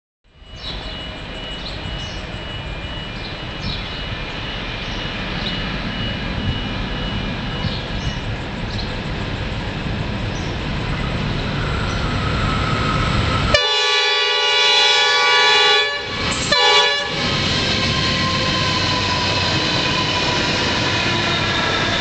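Freight train headed by diesel locomotives approaching, its rumble slowly growing louder. About 13 seconds in the locomotive horn sounds a long chord blast, followed by a short one. The lead locomotives then pass close by with loud engine noise.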